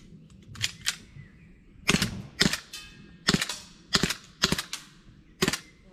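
Airsoft gun firing a string of shots: two softer cracks in the first second, then six sharper, louder cracks about half a second to a second apart, one trailing a brief ringing.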